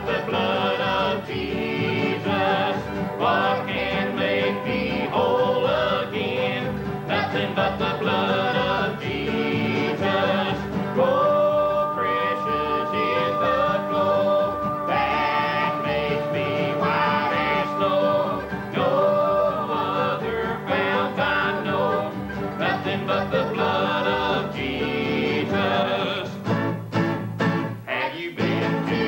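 Country gospel medley sung in harmony by a small mixed group of men and women, backed by acoustic guitar, upright bass and mandolin, with a steady bass beat. The voices hold one long note for several seconds near the middle.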